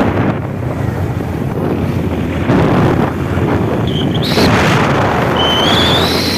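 Heavy wind buffeting the microphone, a loud rumbling roar that swells and dips in gusts. About five seconds in, a thin high whine comes in and rises slightly.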